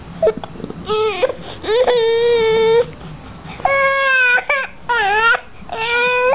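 A five-month-old baby with the hiccups crying in a run of high wails, each half a second to a second long. The longest is held steady for about a second, starting about two seconds in, and later wails dip and rise in pitch.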